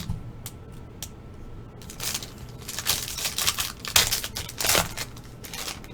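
Trading card packaging being opened by hand: a run of quick crinkling and tearing rustles from about two seconds in until nearly five seconds in.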